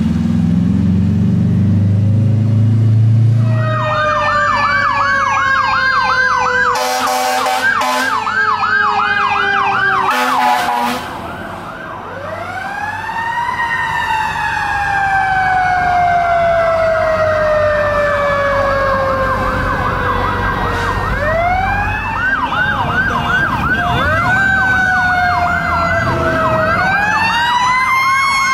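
Fire truck sirens: a fast up-and-down yelp with a wailing tone beneath it. About twelve seconds in, a siren tone rises and then falls slowly over several seconds, and the fast yelp returns near the end. A low rumble is under the first few seconds.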